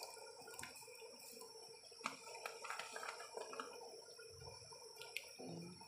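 Pot of rice in turmeric broth simmering, with faint scattered bubbling and small pops.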